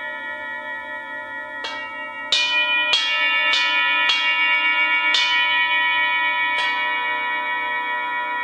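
Set of hand-forged Tibetan singing bowls ringing with many overlapping sustained tones, struck with a mallet about seven times starting about two seconds in, each strike adding a fresh layer of ringing.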